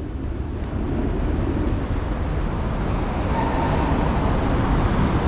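Honda VTR250's V-twin engine idling steadily through a Moriwaki aftermarket muffler, with a low, uneven exhaust beat.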